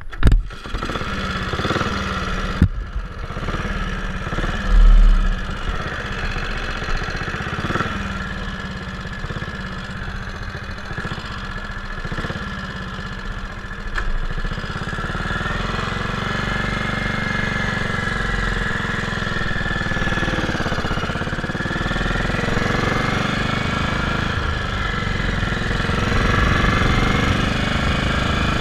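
Moto Guzzi Falcone's horizontal single-cylinder four-stroke engine starting suddenly, running with a few knocks over the first seconds, then pulling away and running steadily under way, its pitch rising and falling later on with the throttle.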